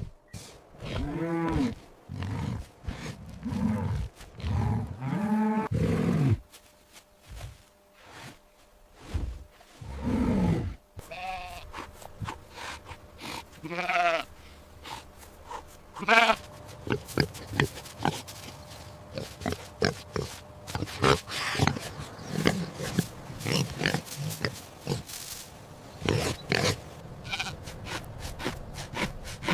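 Recorded animal calls in sequence: a string of separate drawn-out pitched calls in the first half, some with a wavering pitch, then a long run of short rough pig grunts.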